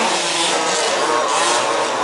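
Several 1/5-scale radio-controlled off-road race cars' small two-stroke petrol engines buzzing and revving at once, their pitches overlapping and rising and falling as the cars race around the track.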